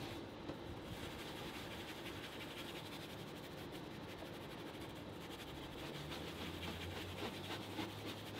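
Faint scratchy scrubbing and rubbing: a detailing brush agitating cleaner on a car's center console armrest lid, with a microfiber towel wiped over it.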